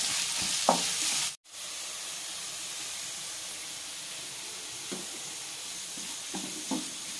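Sliced onions sizzling in hot coconut oil in a nonstick kadai, frying down toward brown, with a wooden spatula scraping and stirring them a few times. The sound cuts out for a moment about a second and a half in.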